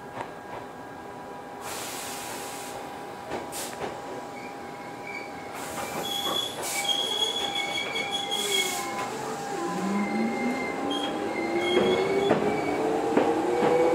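Toyohashi Railway 1800 series electric train pulling away: its traction motor whine rises steadily in pitch from about two-thirds of the way in as it gathers speed. High wheel squeal comes and goes in the middle, after a few short bursts of hiss near the start.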